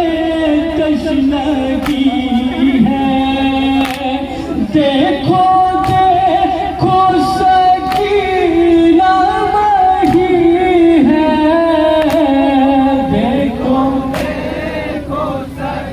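A noha, a Muharram lament, chanted by a group of men in unison behind a lead reciter on a microphone, with long held, wavering notes. Sharp chest-beats of matam land in time about every two seconds.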